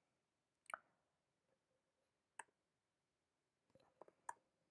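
Faint, isolated clicks at a computer, keystrokes and mouse clicks as commands are pasted into a terminal: a single click about a second in, another about two and a half seconds in, and a quick run of clicks near the end.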